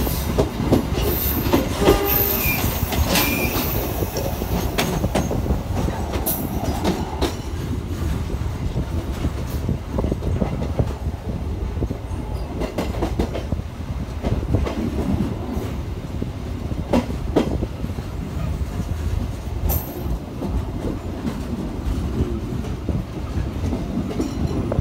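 Passenger train carriage running on the rails, heard from its window: a steady rumble of the wheels with clickety-clack over the rail joints. There are a few brief high-pitched wheel squeals in the first few seconds.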